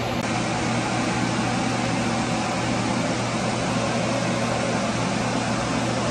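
A fan running steadily: an even whooshing noise over a constant low hum.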